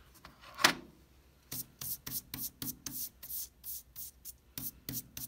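Bristles of a drafting brush sweeping eraser crumbs off drawing paper in quick short strokes, about four a second, after a single louder swish about half a second in.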